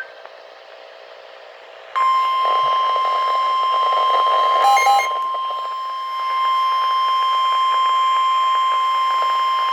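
NOAA Weather Radio warning alarm tone: a single steady high tone of about 1050 Hz. It starts sharply about two seconds in, after faint hiss, and signals that an emergency warning message follows. A brief burst of short beeps cuts in about halfway through.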